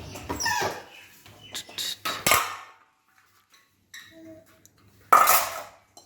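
Clean dishes and utensils clinking and clattering as they are lifted out of a dishwasher rack: a string of sharp clinks, a short pause, then one louder clatter near the end.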